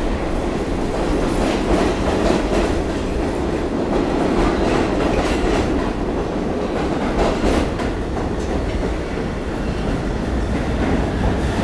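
R46 subway train pulling out of an underground station, its cars running past: a steady rumble of steel wheels on the rails, with irregular clicks as the wheels cross rail joints.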